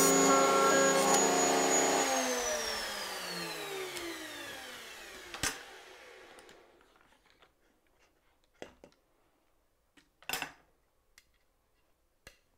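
Table-mounted router cutting dovetails in a jig, running at steady speed, then switched off about two seconds in and spinning down with a falling whine over several seconds. Afterwards a sharp knock and a few lighter knocks and clicks as the jig's clamps are released and the board is lifted out.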